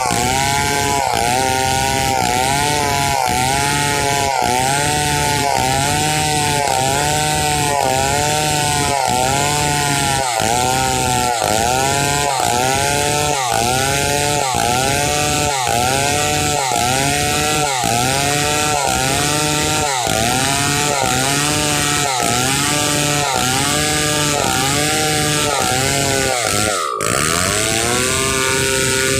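Stihl 070 two-stroke chainsaw running at high throttle while ripping a log lengthwise into planks, its pitch dipping and recovering in a steady rhythm about three times every two seconds as the chain bites. Near the end the pitch drops sharply, then the engine settles on a steadier note.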